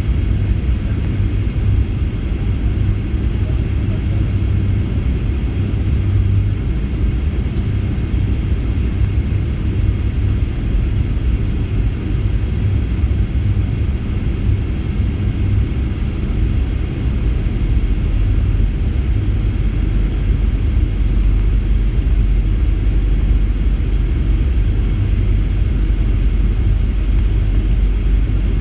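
Cabin noise inside a Boeing 737-800 in flight: a steady low rumble of the engines and rushing air, growing slightly louder in the second half.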